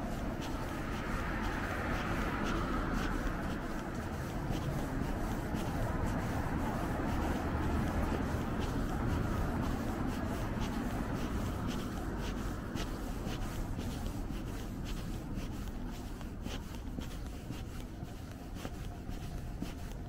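City street ambience: a steady rumble of traffic, a little louder in the first few seconds, with scattered light ticks and scuffs close by from the walk.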